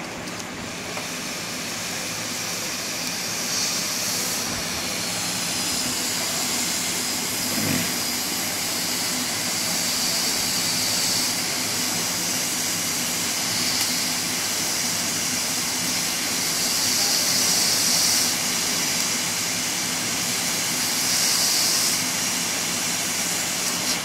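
Hot-air rework station blowing a steady, airy hiss of hot air onto a phone circuit board, melting the solder so the charging connector can be lifted off with tweezers.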